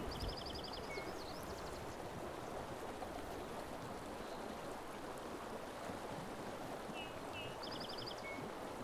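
River current running steadily over a rocky bed. A songbird sings the same short phrase twice, a couple of chirps then a quick trill, once near the start and again near the end.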